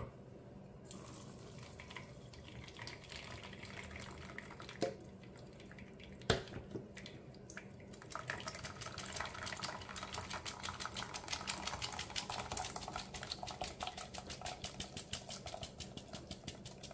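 Thick blended chile sauce pouring from a blender jar into a stainless steel mesh strainer, with a couple of sharp knocks. About halfway through, a spoon starts scraping rapidly and repeatedly against the strainer's mesh, pushing the sauce through into the bowl below.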